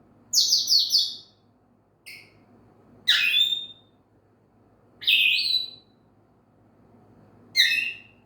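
African grey parrot giving a string of high chirping whistles, one call about every two seconds, some as quick runs of notes. These are attention-seeking calls.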